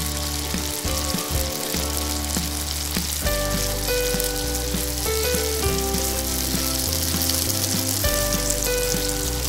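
Falafel balls deep-frying in hot oil, a steady sizzle, with background music and its bass line playing underneath.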